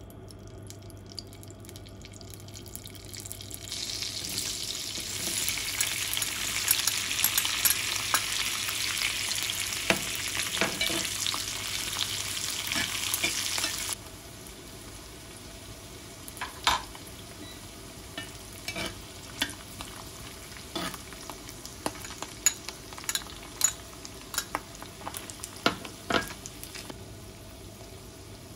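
Oil sizzling in a small cast-iron skillet as butter and garlic cloves fry. The hiss builds about three to four seconds in, stays loud, then stops abruptly about halfway. A quieter bubbling follows, with scattered sharp pops and clicks.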